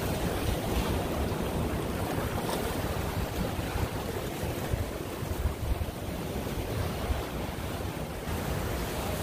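Surf washing against the rocks of a jetty, a steady wash with no distinct breaks, while wind buffets the microphone.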